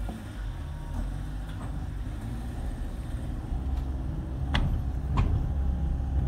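A car driving, heard from inside the cabin: a steady low engine and road rumble that grows slightly louder, with two sharp clicks near the end.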